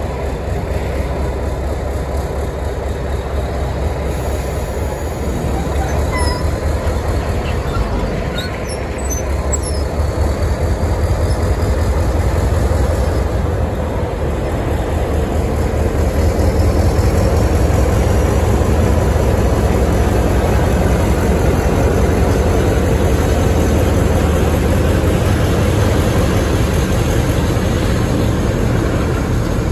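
Two diesel switcher locomotives running past with a steady deep engine drone and rail noise, growing louder partway through. There are a few short high squeaks about six to nine seconds in.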